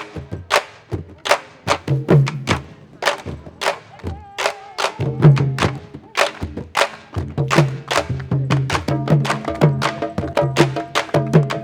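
Candombe drumming: sharp stick clicks over deep drum tones in a fast, steady rhythm.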